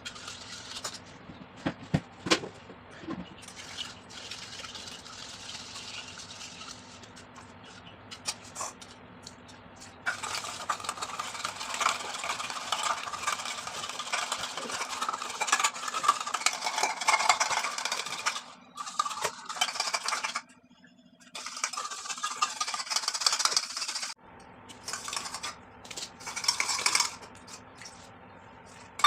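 A spoon stirring and scraping in a bowl, mixing homemade slime. Scattered clicks at first, then from about ten seconds in steady stirring and scraping, with a brief pause around twenty seconds in.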